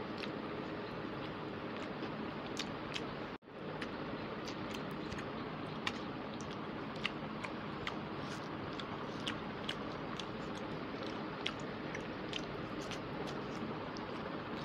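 Close-miked chewing and wet mouth clicks and smacks from someone eating rice and chicken curry by hand, scattered irregularly over a steady hiss; the sound drops out for an instant about three and a half seconds in.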